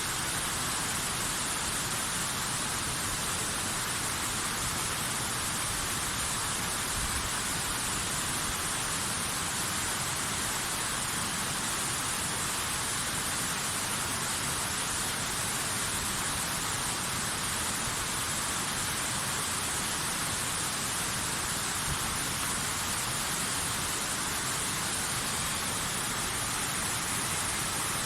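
Waterfall: water pouring down in a steady, even, hissing rush with no breaks or separate events.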